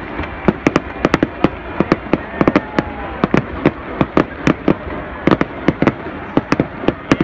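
Aerial fireworks bursting overhead: a rapid, irregular string of sharp bangs and crackling pops, several a second, over a steady background din.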